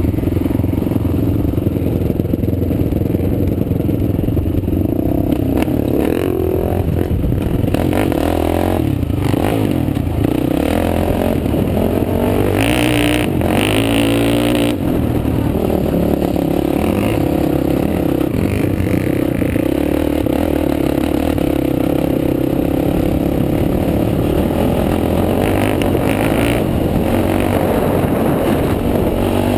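Sport quad's engine running and revving under throttle as it rides over sand, with rattling from the machine.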